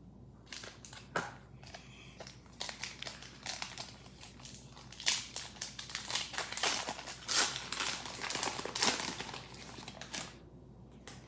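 Foil Pokémon booster pack wrapper crinkling and tearing as it is opened by hand: a run of sharp crackles that gets busier and louder in the second half, then stops.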